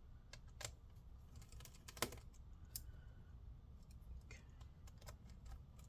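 Faint scattered clicks and ticks of a small Phillips screwdriver turning out laptop fan screws, with the sharpest click about two seconds in.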